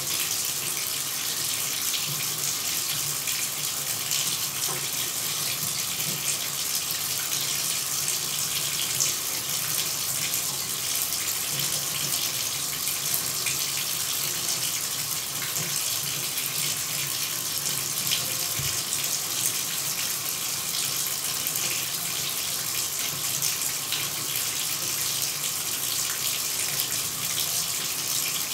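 Running shower: water spraying in a steady, even hiss, brightest in the treble, with no change or break.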